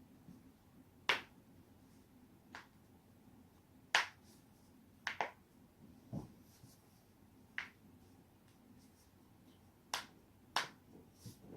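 Human joints cracking: a series of about ten sharp, short pops at uneven intervals, the loudest about a second and four seconds in, two coming in a quick pair a little after five seconds.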